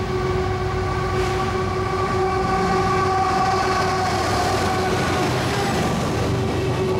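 Norfolk Southern diesel freight locomotive passing close by, sounding its horn in one long multi-note chord over the rumble of the engine and wheels. The horn fades near the end as the container cars roll past.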